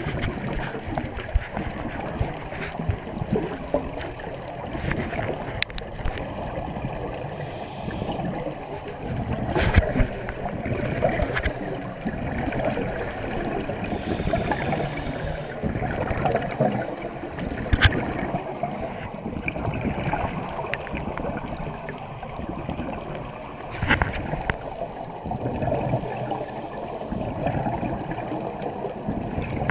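Scuba divers' exhaled air bubbling and gurgling, heard underwater through the camera housing, swelling and easing every few seconds, with a sharp click now and then.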